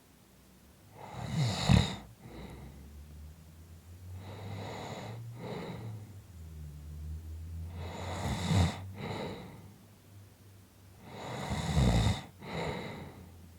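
A person snoring: four breaths roughly every three and a half seconds, three of them loud rattling snores, the first the loudest, with a quieter, lower snore between them.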